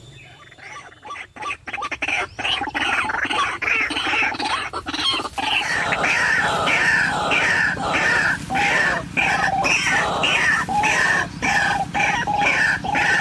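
White-breasted waterhen calling: a long, rapid series of harsh repeated calls that builds up over the first few seconds, then keeps going loud and steady.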